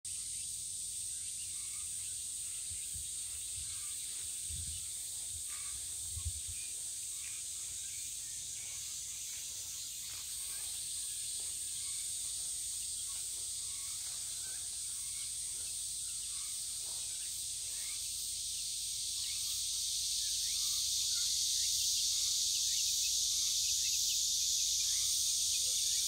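Cicadas buzzing in a steady high-pitched drone, growing louder about twenty seconds in, with scattered faint chirps and a couple of low thumps around five and six seconds in.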